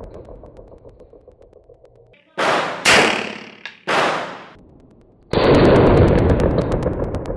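Semi-automatic pistol shots: three sharp cracks about two to four seconds in, each with a fading tail. About five seconds in comes a loud, muffled boom that fades slowly.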